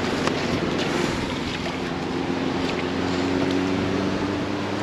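Shallow surf washing over sand at the water's edge, with wind on the microphone and a steady low engine hum.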